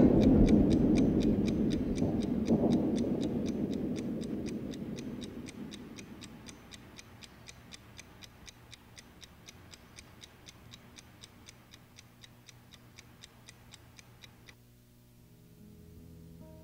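A low rumbling roar fades away over the first several seconds while a clock or watch ticks steadily, about four ticks a second. The ticking cuts off suddenly near the end, and soft guitar music begins.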